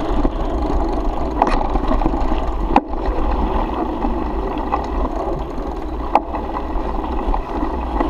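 Mountain bike rolling down a dirt track: steady tyre noise on loose ground and rattle of the bike, with wind rumbling on the handlebar camera's microphone. A few sharp knocks from bumps, the loudest about three seconds in.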